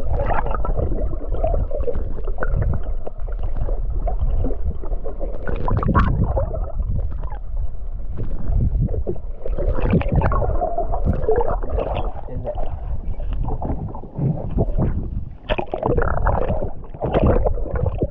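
Muffled gurgling and sloshing of lake water around a camera held just under the surface, with irregular swells as it dips in and out of the waves.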